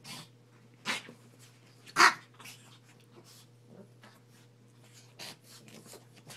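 Two Pekingese dogs play-fighting, giving a handful of short, sharp play noises, the loudest about two seconds in.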